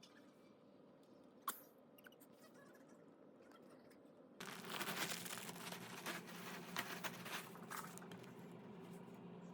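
A single sharp click, then from about four seconds in a steady run of rustling and crinkling, as of something crisp being handled.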